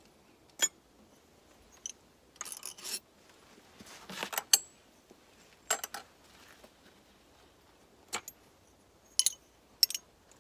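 Scattered metallic clicks and clinks of a hand tool and small T27 Torx bolts being worked loose and handled, with short rattling runs about two and a half and four seconds in.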